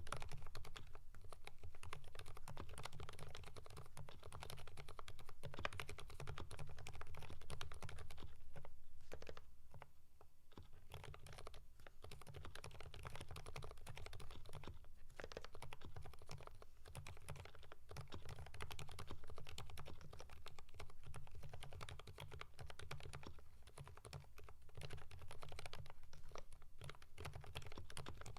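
Steady fast typing on a Keychron V5 mechanical keyboard fitted with lubed Kailh Fried Egg silent switches and GMK Norse keycaps: a dense patter of muted keystrokes. It thins and drops a little in level for a moment about nine to eleven seconds in.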